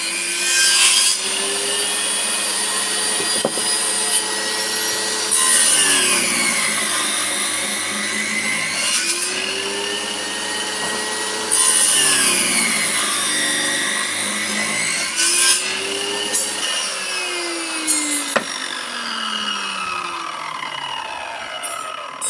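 Table saw ripping narrow strips of wood for tenons: the blade's whine drops in pitch each time a piece is fed through, then rises again, several times over. Over the last few seconds the whine falls steadily as the blade runs down.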